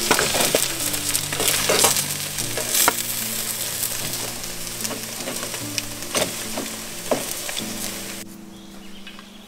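Shashlik skewers sizzling over hot charcoal, a dense hiss with scattered pops and crackles, which cuts off abruptly about eight seconds in. Soft background music plays underneath.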